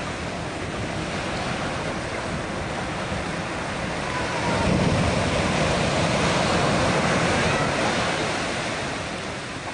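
Ocean surf breaking on a sandy beach: a steady wash of waves that swells louder as a wave breaks near the shore about halfway through, then eases off near the end.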